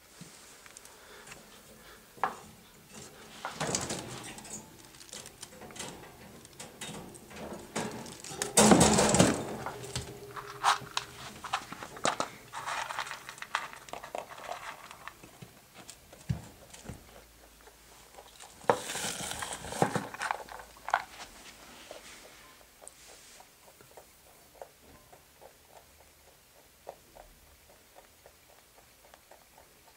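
Lop-eared pet rabbit eating from a plastic food bowl: quick crunching chews with small clicks, and three louder bursts of rustling and knocking against the bowl.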